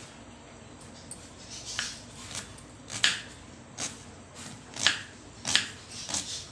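Knife cutting onions finely, with separate sharp cuts coming irregularly, roughly one or two a second.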